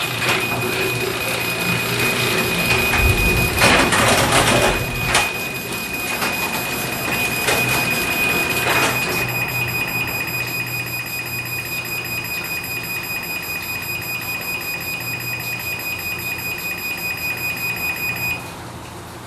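MyQ smart garage door controller sounding its loud warning beep as the door closes: a high tone that pulses rapidly and stops abruptly a second before the end. Over roughly the first nine seconds the closing garage door rumbles and rattles beneath it, with a few knocks.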